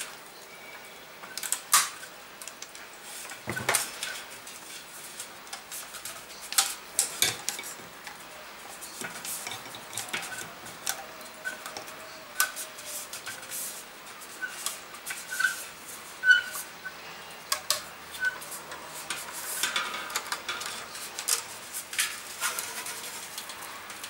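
Scattered clicks, taps and light knocks from handling a roll of tubeless rim tape while laying it into the bed of a bicycle rim held in a truing stand.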